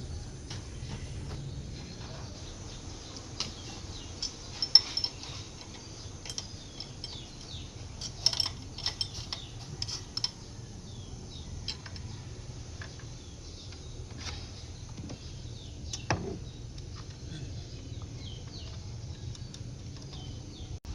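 Hand tools clinking and tapping on metal engine parts while a fuel injector and its lines are worked loose, the clinks coming in clusters with one heavier knock about two-thirds of the way through. A low steady hum sits underneath.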